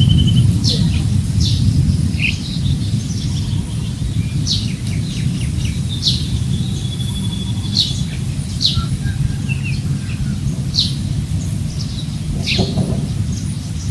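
Birds chirping in short, sharp calls, one every second or so, over a steady low rumble of wind on the microphone.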